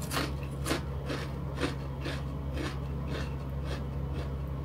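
Chewing a mouthful of ridged crisps: crisp crunches at about two a second.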